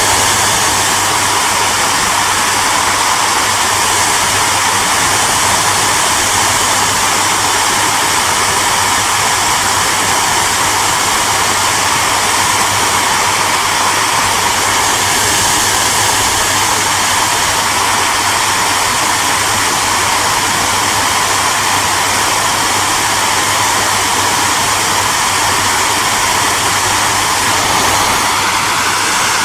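Hair dryer running steadily: a constant rushing whoosh of air with a low motor hum underneath.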